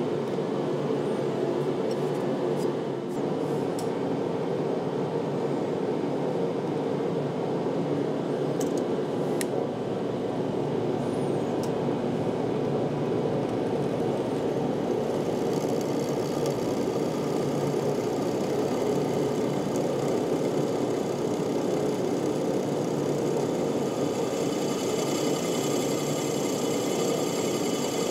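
Drill press motor running steadily while a bit drills a half-inch hole through a metal bracket. A few light clicks come in the first half, and from about halfway a high hiss joins as the bit cuts.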